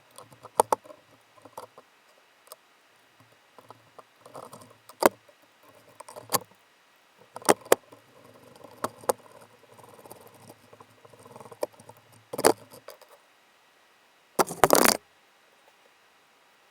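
Hand tools and metal engine parts being handled during dirt-bike clutch work: scattered sharp clicks and knocks with handling noise between them, and a louder half-second burst of noise near the end.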